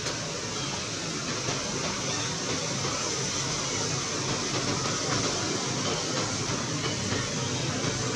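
Steady, even background noise with no distinct calls, knocks or other separate events.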